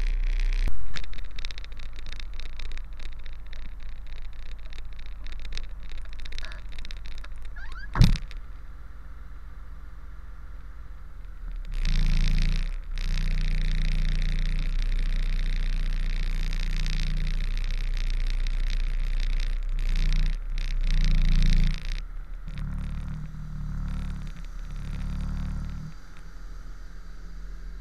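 Heavy truck's diesel engine running at low revs while a B-double is reversed, heard from a camera on the side of the cab, with crackling at first and one sharp knock about eight seconds in. From about twelve seconds the low engine note holds steady, rises twice near twenty seconds, then drops away near the end.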